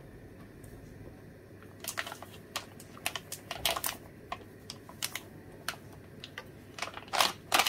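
Paper bag of vital wheat gluten crinkling and crackling as it is tipped and shaken out into a glass bowl, the powder sliding out. About two seconds in, a run of irregular sharp crackles starts, and it grows louder near the end.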